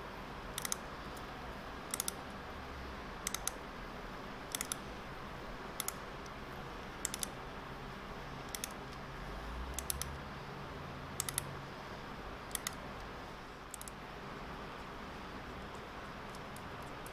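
A 6 mm hand tap being turned into a drilled and tapped hole in a milling machine casting with a hand tap wrench. It gives a sharp click, sometimes doubled, about every second and a bit with each stroke of the wrench. The clicks stop near the end.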